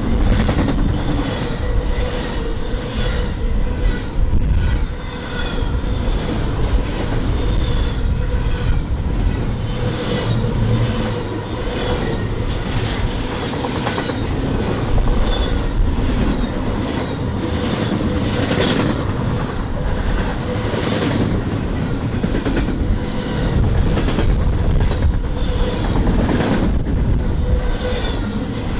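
Freight train cars rolling past close by, their steel wheels clicking on the rails in a steady, repeating rhythm over a continuous rumble.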